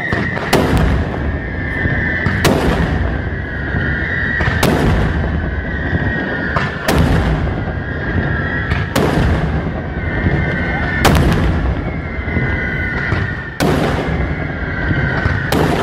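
Daytime fireworks display: about eight loud shell bursts at roughly two-second intervals over continuous crackling and rumbling of smaller charges, with a steady high tone underneath.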